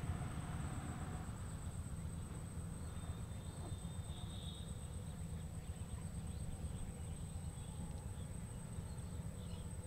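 Outdoor rural ambience: a steady low rumble under a continuous thin, high-pitched insect whine, with a few faint chirps about three to four seconds in.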